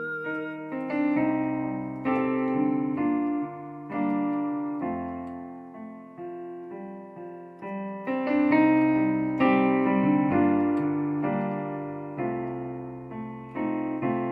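Instrumental piano interlude in a worship song: chords struck about once a second, each note fading away before the next.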